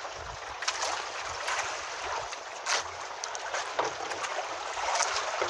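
Water sloshing and lapping against a small outrigger fishing boat, with irregular splashes and knocks through it.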